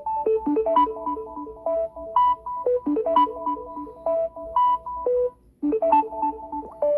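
Electronic ringtone melody: a quick run of short, clean synthesizer notes that breaks off briefly about five seconds in and then starts the phrase over.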